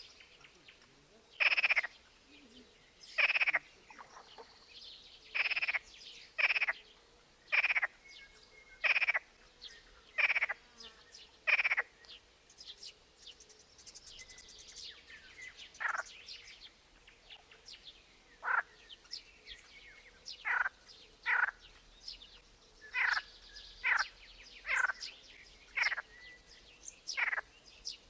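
Frogs croaking in a run of short, loud calls about one a second, thinning out for a few seconds midway and then picking up again. Faint bird chirps sound between the croaks.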